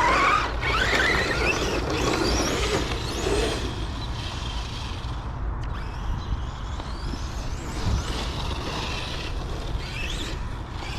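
Electric motor whine of a Kraton RC monster truck, its pitch repeatedly rising and falling as it is throttled hard. It is loudest in the first few seconds, then fainter with shorter bursts, over a steady low rumble.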